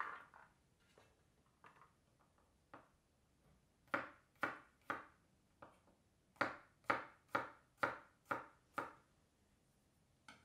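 Kitchen knife chopping on a wooden cutting board: a few scattered strokes, then three together about four seconds in, and a run of about seven strokes, roughly two a second, in the second half.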